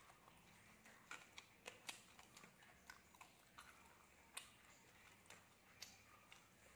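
Faint close-up chewing of crispy bánh xèo (Vietnamese rice-flour pancake) with herbs, with scattered sharp crunches and mouth clicks, loudest about two and four and a half seconds in.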